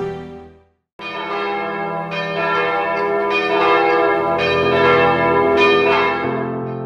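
Church bells pealing, a new strike about every second, their ringing tones overlapping and slowly fading near the end as a piano begins. Just before, soft music fades out into a moment of silence.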